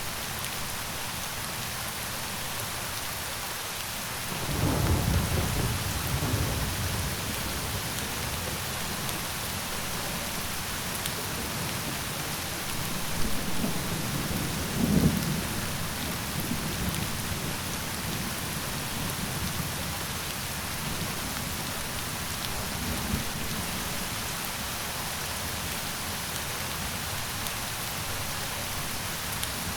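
Steady heavy rain, with rolls of thunder rumbling about four seconds in and again around thirteen to fifteen seconds in.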